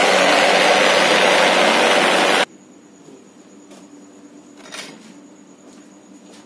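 Concrete cube vibrating table, its motor and belt drive running with a loud, steady machine noise that compacts the concrete in the steel cube moulds. The noise cuts off suddenly about two and a half seconds in, leaving a quiet background with a couple of faint taps.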